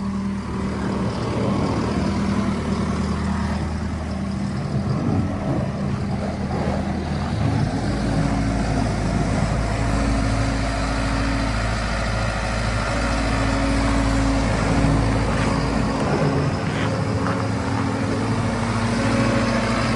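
Volvo MC115C skid steer's diesel engine running, its note changing about seven or eight seconds in as it goes to work.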